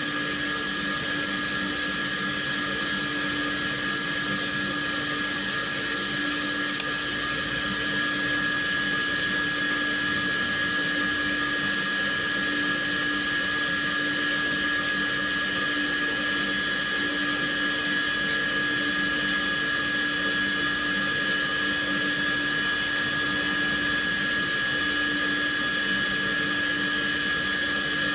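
A steady electric whirring hum with a few constant tones running underneath, and one short click about seven seconds in.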